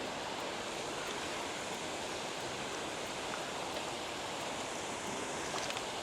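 Steady, even outdoor rushing noise, with a few faint ticks.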